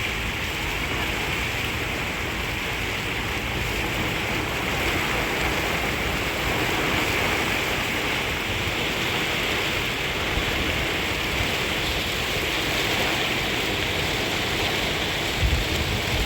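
Rain falling steadily, a dense even hiss, with a brief low bump near the end.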